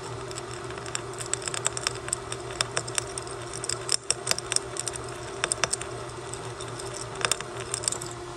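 A machine-driven 3/16 in left-hand drill bit cutting into a broken steel bolt: a steady motor hum with irregular sharp ticks and crackles as the bit cuts and chips break. The bit keeps drilling into the bolt instead of catching it and backing it out.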